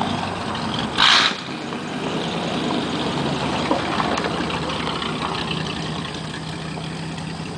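Truck engine running steadily at low revs, with a brief loud burst of noise about a second in.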